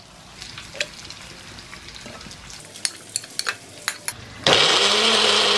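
A few clicks and knocks as a plastic mixer-grinder jar is handled on its base, then, about four and a half seconds in, the mixer grinder's motor starts suddenly and runs steadily, grinding cooked tomato masala to a paste.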